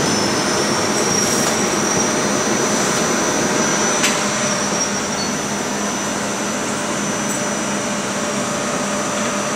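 Steady rushing noise of an Indian Railways express coach rolling out of a station, heard from its open doorway, with one sharp click about four seconds in.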